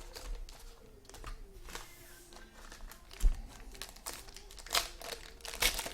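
Trading card pack wrappers crinkling and tearing as packs are ripped open and handled, in irregular rustles, with one sharp knock about three seconds in.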